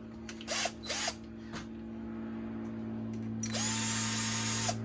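Small cordless power driver whirring in two short blips, then one longer run of about a second near the end, backing out the Torx screws of a plastic tool housing. A steady low hum runs underneath.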